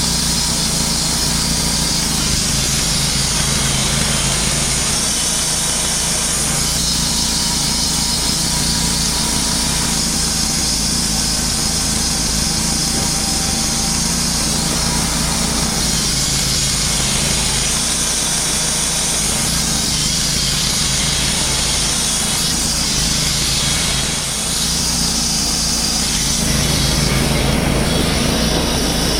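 Wood-Mizer LT35 Hydraulic portable band sawmill running steadily under its engine as the band blade saws through a white fir log, with a hiss from the cut that shifts as it goes. The sound dips briefly about 24 s in and picks up a little near the end.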